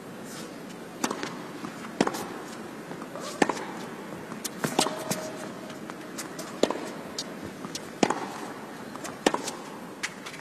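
Tennis rally on an indoor hard court: sharp pops of racquets striking the ball and the ball bouncing, roughly once a second, over a steady background noise of the arena.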